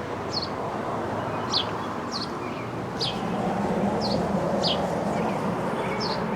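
A small bird chirping repeatedly: short, high chirps that fall in pitch, about once or twice a second, over steady background noise.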